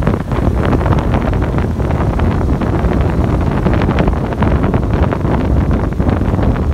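Wind buffeting the microphone of a moving motorbike: a loud, steady rush with a deep rumble and quick crackling gusts.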